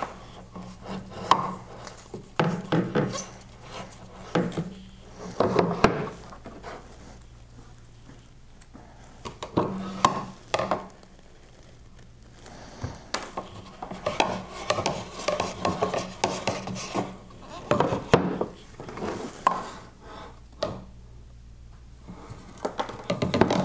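Hard plastic RO filter housings and membrane cartridges being handled: irregular rubbing, scraping and light knocks while their O-rings and stems are greased.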